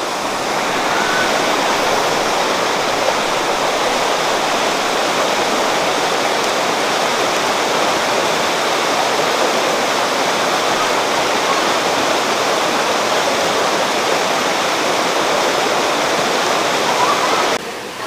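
Steady rush of white water tumbling over the rocks of a jungle waterfall and rapids. About a second before the end it drops suddenly to a softer flow of river water.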